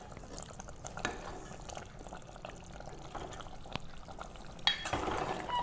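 Metal ladle stirring a thick, cooked masala gravy in a pressure cooker pot: quiet wet squelching with a few light ladle knocks, louder near the end.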